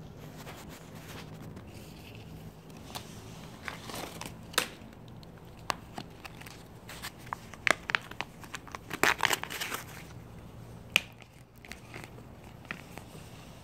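Plastic cat-treat pouch crinkling and tearing as it is handled and opened. There are irregular sharp crackles, thickest in the middle.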